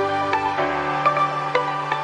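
Soft instrumental background music: a melody of short notes over held chords, changing chord about half a second in.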